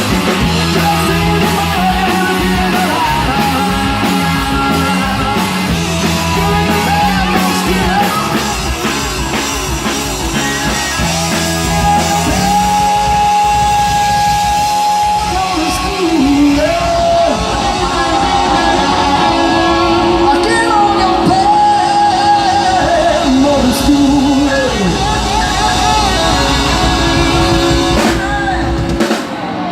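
Rock music with a singing voice and electric guitar, sustained and sliding notes over a steady band.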